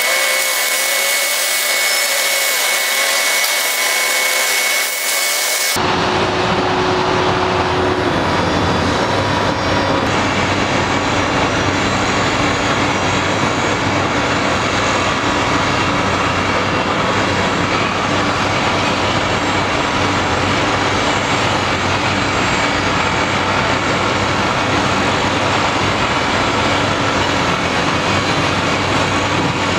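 Steady construction-site din led by a Cat 330D L hydraulic excavator's diesel engine running as it digs. For about the first six seconds it is a thin hiss with a steady high whine, then a deep, fuller rumble comes in and holds steady.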